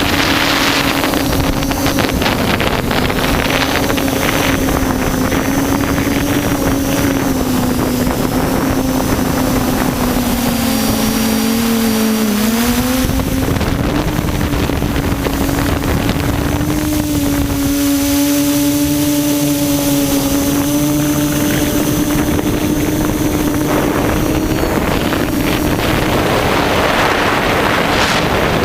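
Quadcopter's electric motors and propellers humming steadily in flight, with wind buffeting the onboard camera's microphone. The pitch dips and wavers about twelve seconds in, then settles back.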